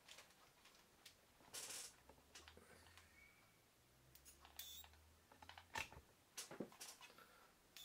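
Near silence: a few faint clicks and small handling sounds, with a faint low hum for a few seconds in the middle.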